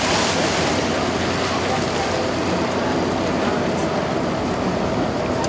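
Motorboat engine running steadily under the rush of water along the hull, a continuous low drone with an even splashing hiss on top.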